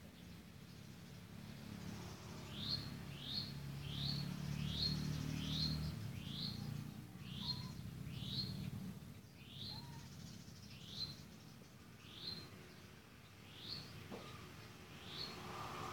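A small bird giving a short rising chirp over and over, about one a second, starting a couple of seconds in. A low hum runs beneath it for the first six seconds or so.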